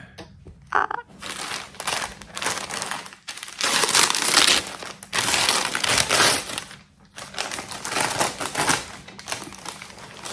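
Gift packaging crinkling and rustling as it is handled and opened, in irregular bursts, loudest in the middle.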